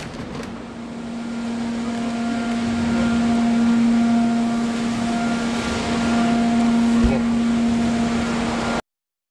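Steady machine hum with a fixed-pitch drone and a hiss beneath it, a single knock about seven seconds in; the sound cuts off abruptly near the end.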